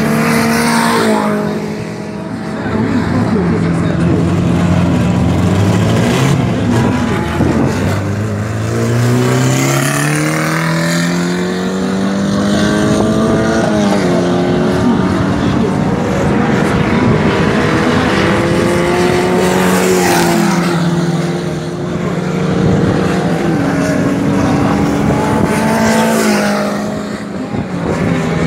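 Racing car engines revving hard on a dirt track. One engine climbs steadily in pitch, then drops sharply about fourteen seconds in and twice more later, as the car shifts up through the gears.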